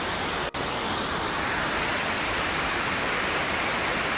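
Decew Falls waterfall pouring, a steady rushing of water with a momentary gap about half a second in.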